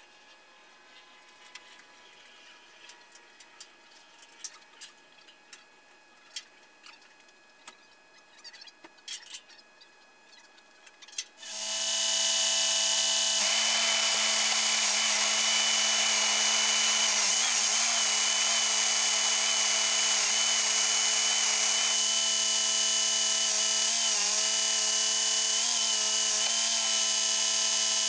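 Crane truck's engine and hydraulic pump running steadily with a whine while the knuckle-boom crane is worked, coming in suddenly about a third of the way in; the pitch dips slightly a few times as the hydraulics take load. Before it, only faint scattered clicks.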